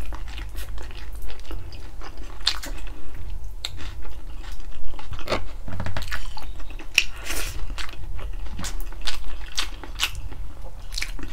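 Close-miked chewing, biting and wet lip-smacking of a person eating stewed pork feet (balbacua), in irregular clicks and smacks, over a steady low hum.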